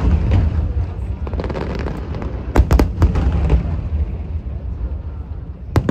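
Aerial fireworks going off: sharp bangs over a steady low rumble, with a cluster of bangs about two and a half seconds in and another bang near the end.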